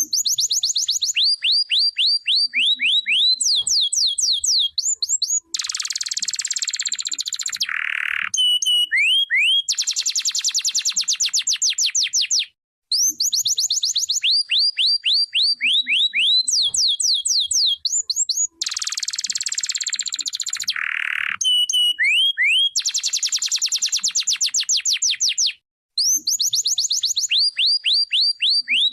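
Domestic canary singing a long, continuous song of rapid trills: quick runs of repeated chirps, with some buzzy rolls between them. It breaks off briefly twice.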